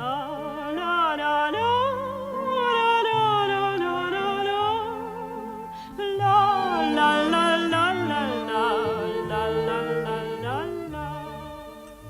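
A woman's voice singing the sea song's melody without words, with wide vibrato, over orchestral accompaniment. There is a brief break about six seconds in, and the music fades near the end.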